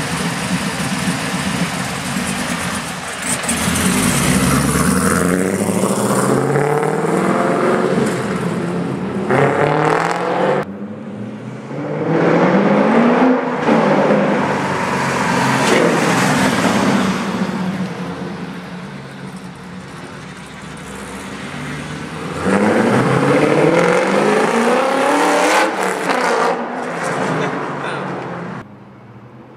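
A forged LS1 V8 with Stainless Works headers and a Comp cam, in a third-generation Camaro IROC, accelerating hard several times. Its pitch climbs, then drops once as it comes off the throttle, and the sound cuts off abruptly twice.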